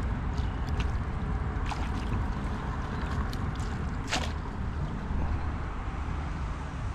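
Small water splashes and drips as a mesh keep net is dipped and shaken at the water's edge, a handful of short sharp ones with the strongest about four seconds in, over a steady low rumble.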